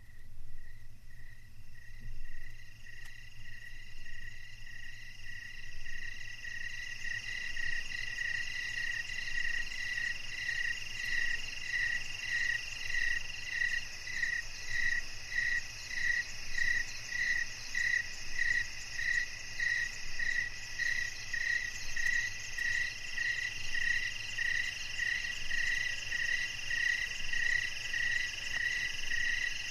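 Summer chorus of calling insects: a pulsed call repeating about twice a second over steady high trilling, growing fuller over the first several seconds.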